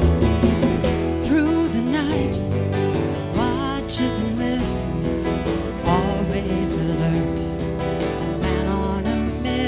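Live acoustic rock band music: strummed acoustic guitar over sustained bass notes, with a melody line on top that bends and wavers several times.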